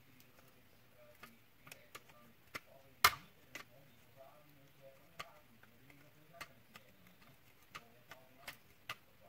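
Scattered small clicks and taps from hand work on a cordless vacuum cleaner's plastic housing as it is trimmed flat, with one sharp, much louder knock about three seconds in.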